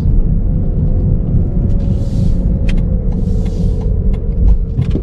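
Car driving, heard from inside the cabin: a steady low road and engine rumble with a faint hum above it, and two brief hissing swells about two and three and a half seconds in.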